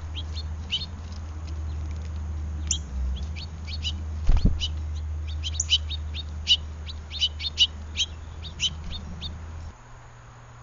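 Birds chirping in quick series of short high calls, over a steady low rumble that cuts off near the end. A single low thump about four seconds in.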